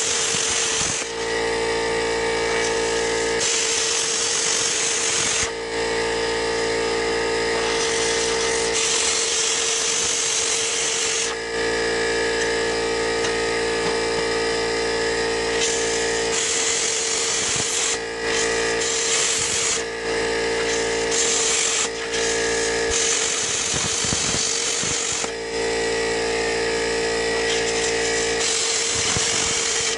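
Handheld plasma cutter cutting steel plate: a steady, high-pitched buzzing hum with a hiss of air and arc that swells and eases in spells as the torch works along the cut, with a few brief breaks.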